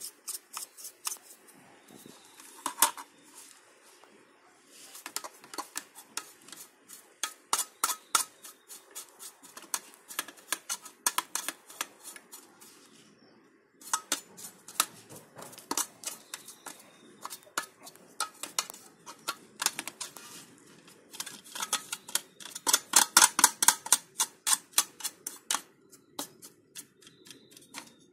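Irregular clicks and clatter of a computer power supply's plastic cooling fan and sheet-steel case being handled and pulled apart, with a denser, louder run of rapid clicks a few seconds before the end.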